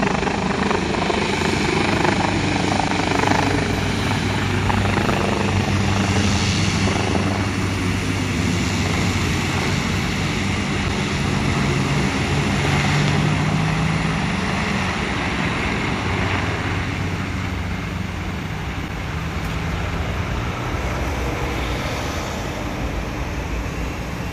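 Orange air ambulance helicopter, an AgustaWestland AW139, flying away after lifting off. Its rotor and turbine sound is loudest at first and fades slowly as it climbs and recedes.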